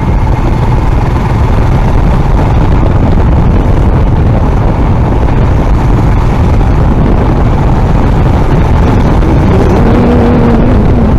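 Motorcycle engine running steadily while riding, mixed with heavy wind rumble on the microphone.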